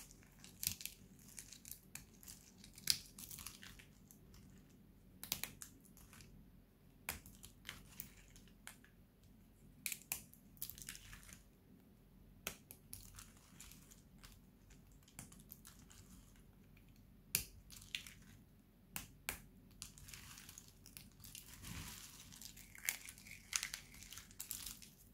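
Thin pieces of bar soap snapped and crushed between the fingers: crisp, irregular cracks and crunches, thickening into a run of crumbling crunches near the end.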